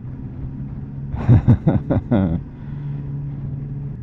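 Suzuki V-Strom motorcycle engine running steadily on the road, with a short flurry of quickly changing pitch a little over a second in.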